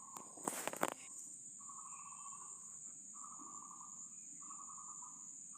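Insects calling: a steady high-pitched buzz with a pulsed trill about a second long, repeated four times. About half a second in there is a brief loud rustle.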